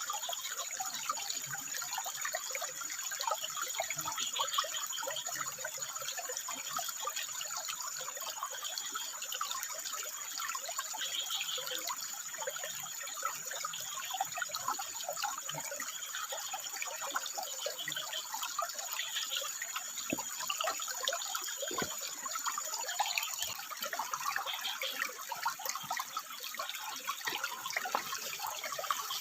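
Water trickling and splashing over rocks in a steady, babbling flow. A thin, steady high whine sits above it and stops about three-quarters of the way through.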